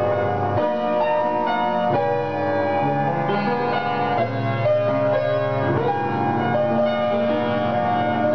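Piano played solo: ringing, sustained chords that change every second or two.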